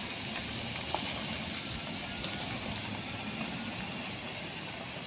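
A car pulling away slowly on a gravel road shoulder: steady engine and tyre-on-gravel noise, fading slightly toward the end, with one small click about a second in.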